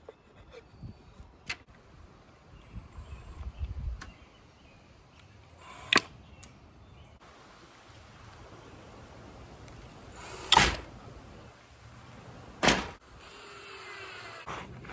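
A screw being driven into a wooden board by hand: scattered light knocks and clicks of wood and tool, with three sharp clunks spread across the stretch.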